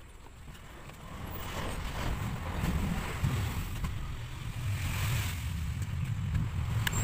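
Wind buffeting the microphone: an uneven low rumble that grows from about a second in, with a faint click near the end.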